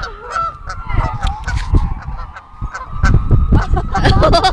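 A flock of Canada geese honking, many short calls overlapping one another. A low rumble joins about three seconds in.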